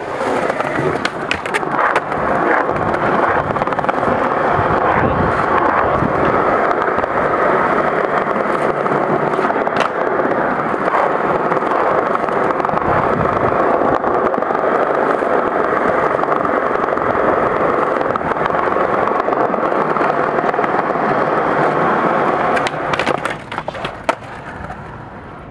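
Skateboard wheels rolling fast over stone paving, a loud steady rushing close to the microphone. It drops away near the end, followed by a few sharp clacks of a board popping an ollie and landing.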